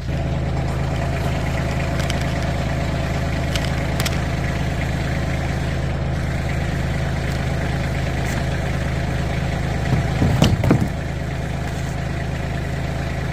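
Backhoe engine running steadily, with a few light clicks and a brief louder surge with a sharp crack about ten seconds in, as the machine is put to crushing old toys.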